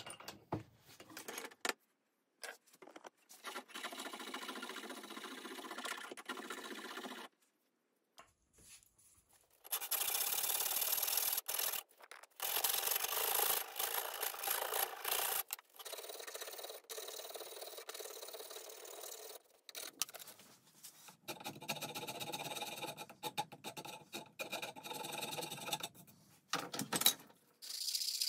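A round file rasping across a wooden knife handle held in a vise, in several stretches of steady scratchy filing separated by short breaks. Near the end, a brief stretch of hand-rubbing with 120-grit sandpaper.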